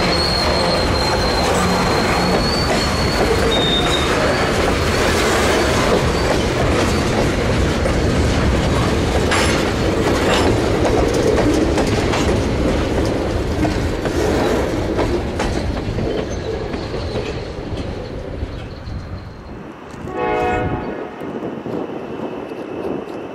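Covered hopper and tank cars of a freight train rolling past: steady wheel-and-rail noise, with a high wheel squeal for the first few seconds, fading as the last car goes by. Near the end the locomotive's horn sounds one short blast.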